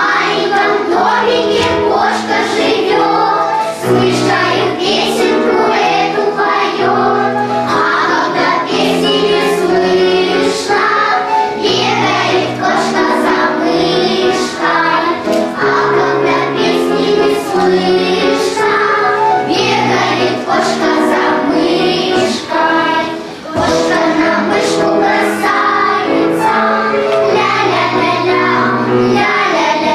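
Children's choir singing a lively song in unison, accompanied by piano.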